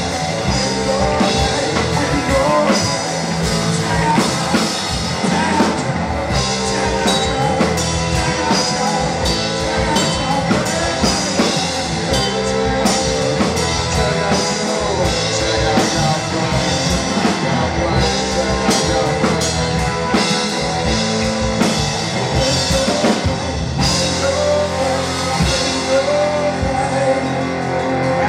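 A live rock band playing loudly: singing over an amplified electric guitar and a drum kit.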